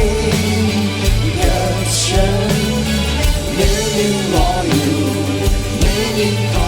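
A band playing a song with a singer's voice over it.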